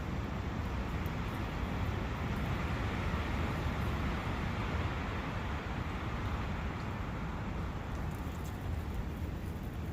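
Forest ambience of steady wind rushing through the trees, with a brook running beneath and a low rumble, swelling a little in the middle.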